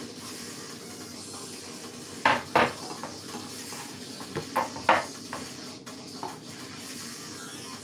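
Wooden chopping board set down and shifted on a kitchen counter: two loud sharp knocks a little over two seconds in, then three lighter knocks around four to five seconds, over a steady low background noise.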